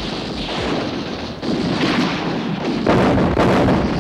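Artillery fire and explosions, coming in waves of blasts that grow louder, loudest about three seconds in.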